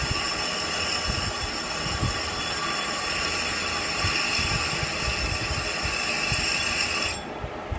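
Metal lathe running in low gear with a steady whine, a deburring knife held freehand against the spinning steel part to form a small 0.030-inch edge radius. The high whine cuts off suddenly about seven seconds in.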